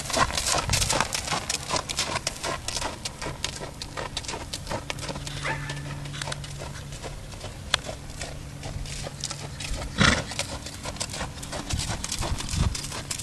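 A molly mule's hooves striking sandy arena footing as she is ridden at a jog, a run of quick hoofbeats. One louder, sharp noise stands out about ten seconds in.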